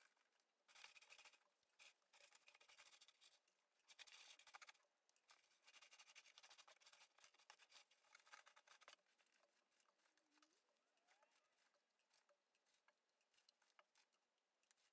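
Faint crinkly rustling of shredded paper packing filler being handled as ornaments are nestled into it, busiest for the first nine seconds or so and sparser after.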